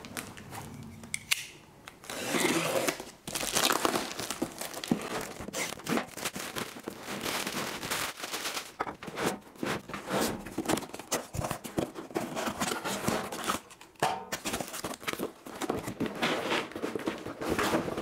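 Cardboard box being opened and unpacked by hand: flaps pulled open and an inner carton slid out, with irregular rustling, scraping and short knocks of cardboard.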